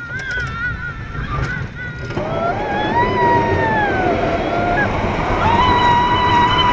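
Roller coaster riders screaming: a long scream that rises and falls starting about two seconds in, then a second scream held steady near the end, over the loud rumble and rush of the moving coaster train.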